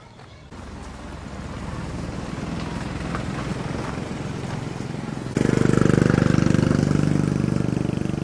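An engine running steadily, abruptly louder about five seconds in.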